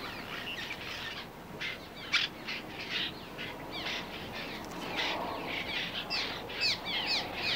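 A flock of cliff swallows calling: many short, overlapping chirps, coming thicker near the end.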